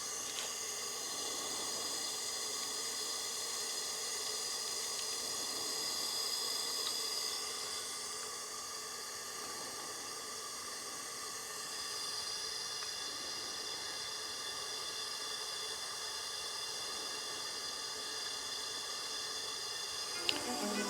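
Steady low hiss with faint steady hum tones underneath and no distinct tool sounds; music comes in at the very end.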